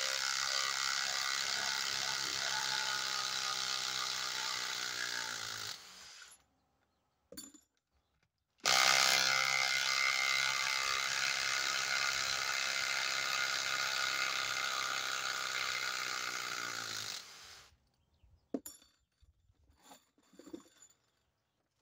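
Kobalt XTR 24-volt impact driver hammering long screws into the end grain of a log in two long runs. The pitch sags as each screw seats near the end of its run, and the driver stops for a short pause between them. Near the end come a few light clicks and clinks of screws being handled.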